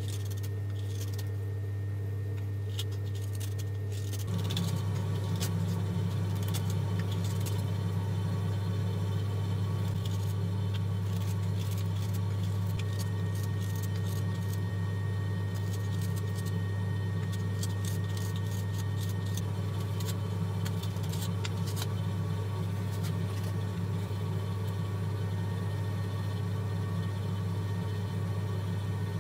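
A steady low machine hum that gets louder about four seconds in, with light clicks and taps of the metal knife parts being handled.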